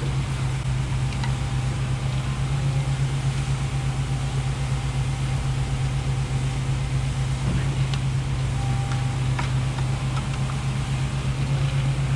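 Concrete pump truck's engine running steadily with a low, even hum, and a few faint clicks over it.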